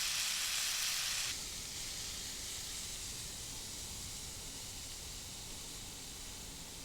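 Beef and green onion sizzling in a pan as steady frying hiss. It drops abruptly to a softer sizzle about a second in.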